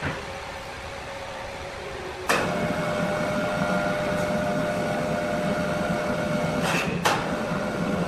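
Electric hoist motor starting about two seconds in and running steadily with a whine, lifting a freshly sawn wooden slab off the log. Two sharp clanks near the end.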